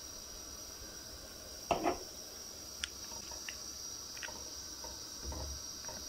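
Pot of water and vinegar essence at a rolling boil on a gas stove, under a steady high-pitched trill. A short knock comes about two seconds in, with a few light ticks after it.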